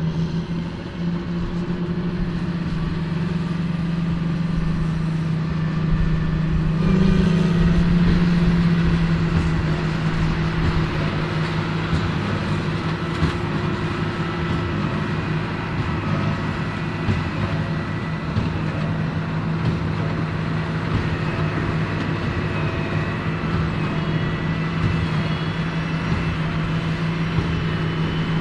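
John Deere 8530 tractor's diesel engine running steadily under load while pulling a Krone BigPack large square baler, with a steady low hum that grows louder about seven seconds in.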